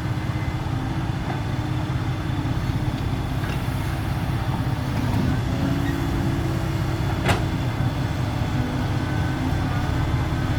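Heavy diesel engine running steadily at low revs, with a single sharp click about seven seconds in.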